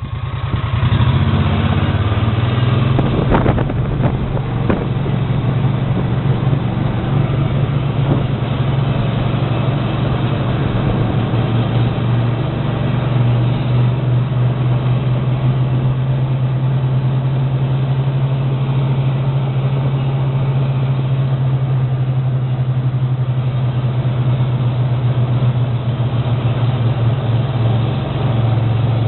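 Loud, steady low mechanical drone of a running motor or machine, with a few sharp knocks about three to four seconds in.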